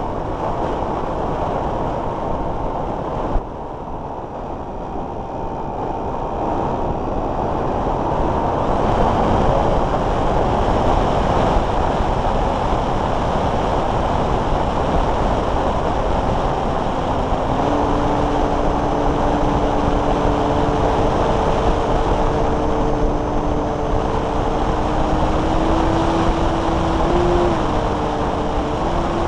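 Airflow rushing over the onboard camera of a Multiplex Blizzard electric hotliner in flight, under the steady whine of its brushless electric motor. The whine slowly drops in pitch over the first few seconds, fades, and comes back at a lower pitch later, stepping up near the end as the throttle changes.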